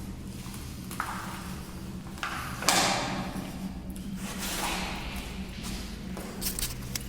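Footsteps and thuds in loose rubbish on a concrete shelter floor: a few knocks with scuffing after them, the loudest about three seconds in, and a few lighter clicks near the end. A low steady hum runs beneath.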